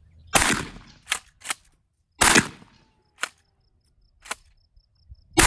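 Three 12-gauge shotgun shots firing 1-ounce slugs, about two and three seconds apart, with fainter sharp clicks and knocks between them.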